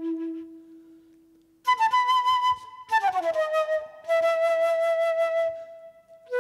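Silver concert flute playing solo with vibrato. A long low note dies away, then after a short pause comes a high note, a quick fall to a held middle note, and a new note beginning near the end.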